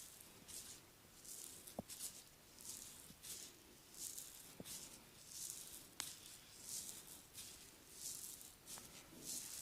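Faint massage strokes, hands rubbing over skin: soft swishing at a steady pace of about three strokes every two seconds, with a few faint clicks in between.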